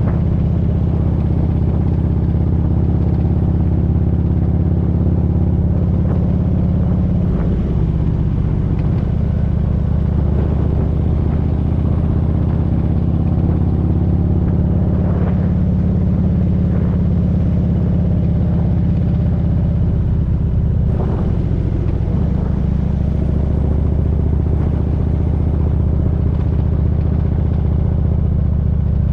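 Motorcycle engine running steadily while riding, with the engine note shifting briefly twice.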